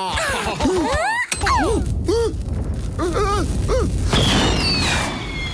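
Cartoon sound effects: a string of short, excited squawking cries over a low rumble, then about four seconds in a long falling whistle as a firework rocket streaks past trailing smoke.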